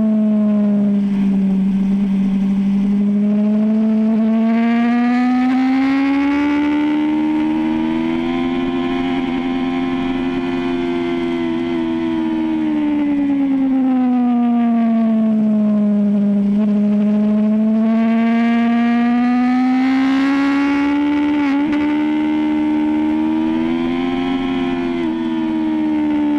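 BMW S1000RR inline-four engine running at high revs under way, its pitch rising and falling slowly and smoothly with the throttle, twice over.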